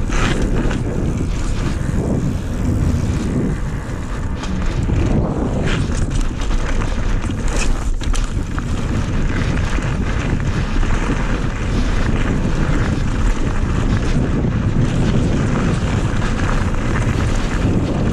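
Strong wind buffeting the microphone: a loud, steady rumbling rush, with a few brief sharper crackles about midway.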